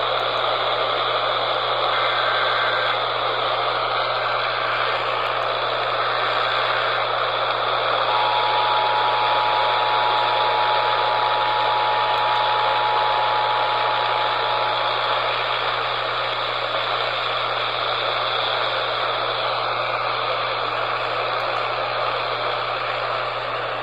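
Dense radio static hiss over a steady low hum. Buried in it is a faint Emergency Alert System signal: three short data bursts about two, four and six seconds in, then the two-tone EAS attention signal held for about seven seconds from about eight seconds in.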